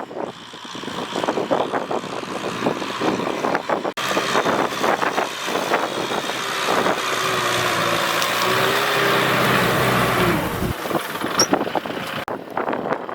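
Tractor running in a field with a dense clattering rattle; its engine note wavers between about seven and ten seconds in, and its deep hum cuts off abruptly near eleven seconds.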